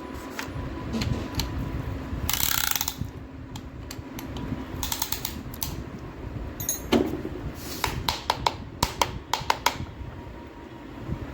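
Metal hand tools working on engine parts: a run of sharp metallic clicks and clatters, with a short noisy rasp about two and a half seconds in and a quick series of clicks near the end.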